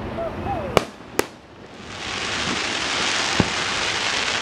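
Fireworks: two sharp shell bangs close together about a second in. Then a steady hiss for the last couple of seconds as a shell with a sparkling tail climbs, with one more sharp crack partway through.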